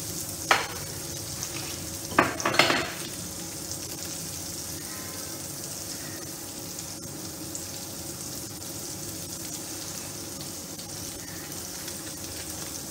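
Pointed gourd pieces sizzling steadily as they fry in oil in a pan, with a few sharp clinks of a spoon on a glass bowl in the first three seconds.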